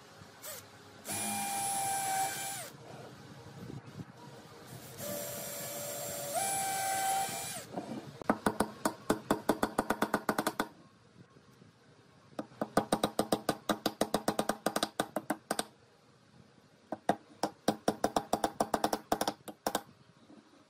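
Cordless drill boring into a pine board in two short runs, each a steady whine, the second stepping up in pitch as it goes. Then a hammer driving nails into the pine in three runs of quick, sharp blows.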